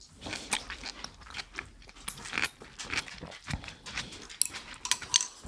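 Close-miked eating sounds of miso udon soup: irregular slurping of noodles and broth, with biting and chewing.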